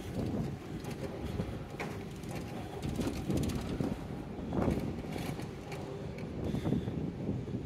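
Wheels of a plastic cart rumbling and rattling as it rolls fast over a concrete floor, with irregular bumps and clicks.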